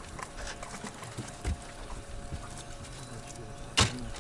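Scattered light knocks and clicks of fishing gear and feet on a boat deck, with one sharp knock near the end, over a faint steady hum.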